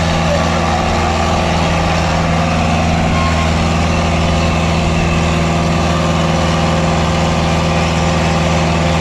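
HMT 6522 tractor's diesel engine running at a steady speed under heavy load as it hauls a loaded trolley.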